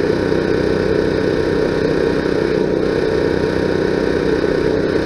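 An engine running steadily at idle, a constant even hum with no change in speed.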